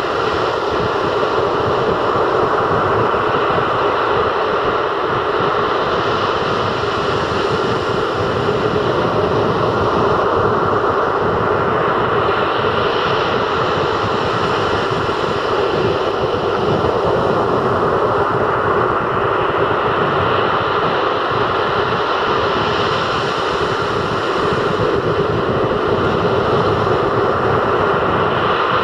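Surf from a rough sea breaking on a beach: a continuous rush of waves and foam that swells and eases every several seconds.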